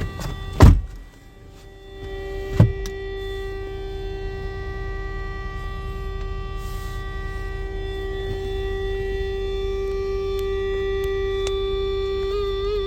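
Steady high-pitched tone with overtones from a 2011-on Ford Explorer, the strange beeping noise of unknown origin. It comes in after two sharp knocks in the first three seconds, then holds steady and wavers briefly near the end.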